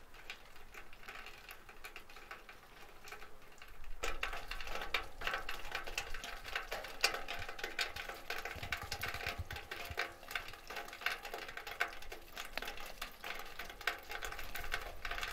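Meltwater from thawing snow dripping and trickling in many quick, irregular drops, louder from about four seconds in.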